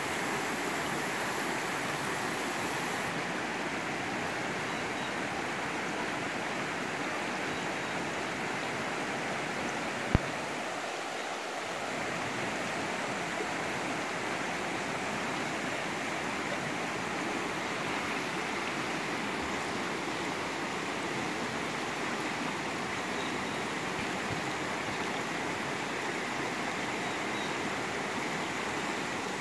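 Shallow rocky creek rushing steadily over stones and small riffles, with one sharp click about ten seconds in.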